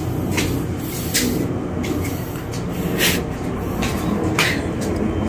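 A small child's footsteps climbing stairs: a few separate light slaps, about a second or more apart, over a steady low background rumble.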